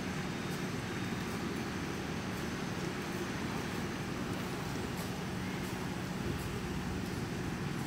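Steady background noise with a low, even hum running under it and a few faint ticks; no animal call or distinct event stands out.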